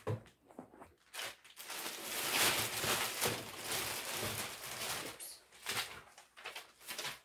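Plastic packaging rustling and crinkling in irregular bursts as products are handled and packed into a bag, loudest a couple of seconds in.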